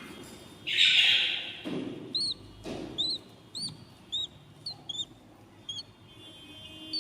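Budgerigar chicks calling in the nest box: one loud, harsh rasping call about a second in, then a string of short, high peeps, roughly two a second, fading out near the end.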